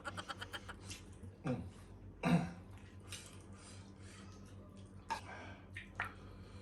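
Mouth and voice sounds from a person eating: a quick pulsing chuckle-like burst right at the start, then two short low sounds falling in pitch, like throat clearing, over a steady low hum.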